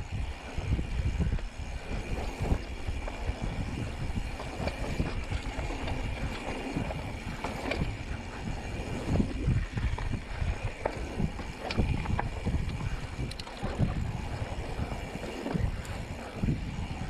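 Mountain bike rolling fast over slickrock sandstone: a constant low rumble of tyres on rock, with frequent sharp knocks and rattles from the bike over bumps, and wind buffeting the microphone.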